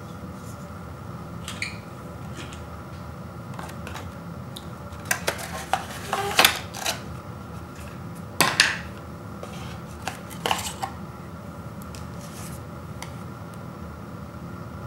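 Cardboard packaging and plastic wrap being handled: scattered rustles, scrapes and light taps, busiest in the middle, over a steady low hum.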